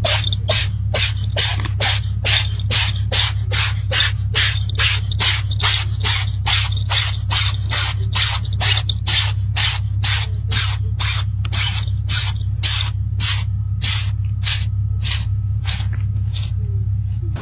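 A cat sneezing over and over, about two short sneezes a second, some thirty-odd in a row, stopping shortly before the end. A steady low hum runs underneath.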